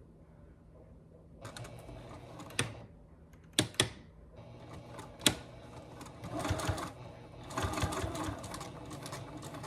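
Sewing machine stitching through fabric, starting about a second and a half in, with several sharp clicks and a louder stretch of running near the end.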